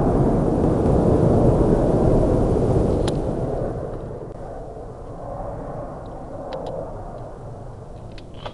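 Jet fighter's engine rumble passing overhead, loud for the first three seconds or so, then fading away to a softer distant rumble.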